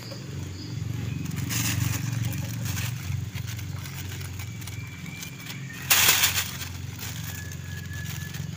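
Thin plastic fruit-cover bags crinkling as a hand handles them among the fruit clusters, in two short bursts, the second louder, over a steady low hum.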